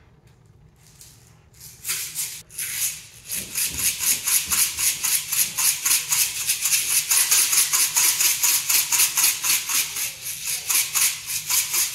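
Plastic jar of tiny round rainbow sprinkles shaken hard over a cake, the beads rattling inside in a fast, even rhythm that starts about two seconds in.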